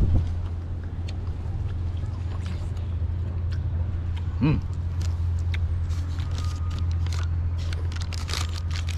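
Close-up mouth sounds of someone chewing a juicy plum: wet smacks and clicks, many in the second half, over a steady low rumble. There is a short vocal sound about halfway through.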